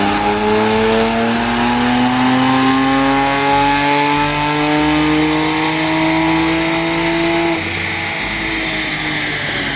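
BMW 335i's N54 twin-turbo straight-six making a full-throttle dyno pull, its pitch climbing steadily for about seven and a half seconds. Then the throttle is lifted and the revs fall away.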